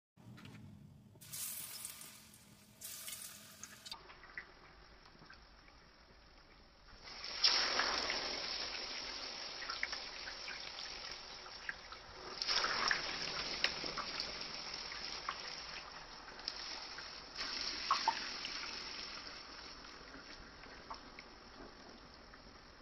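Hot oil in a cast iron skillet sizzling as slices of plantain are laid in. The sizzle surges three times, about five seconds apart, as each new slice goes in, and fades slowly between.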